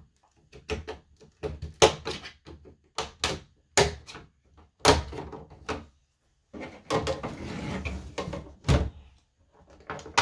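Plastic snap clips of an HP all-in-one computer's rear cover clicking and popping loose as a pry tool works along the seam. The snaps and knocks come at irregular intervals, with a stretch of plastic scraping in the second half and a louder knock near the end.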